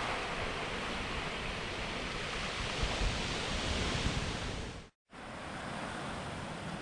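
Ocean surf washing over a rocky shore: a steady rush of water that swells about three to four seconds in. The sound drops out for a moment about five seconds in, then a steadier, slightly quieter rush of water follows.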